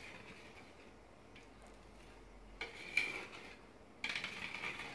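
Metal putty knife scraping wet filler paste across a wall in strokes: two louder strokes, one about two and a half seconds in and another about four seconds in.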